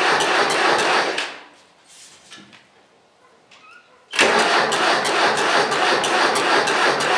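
John Deere 2550 diesel engine cranking on the starter in the cold, without glow plugs, in a slow, even chug. The cranking stops about a second in, and after a quiet gap of about three seconds it starts again abruptly and keeps chugging.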